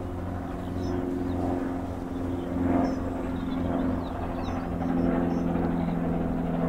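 A steady, deep engine drone that slowly grows louder, with small birds chirping faintly above it.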